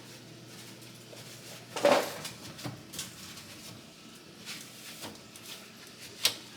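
Metal parts clattering and knocking as they are handled and set down, with one loud clank about two seconds in and a sharp knock near the end.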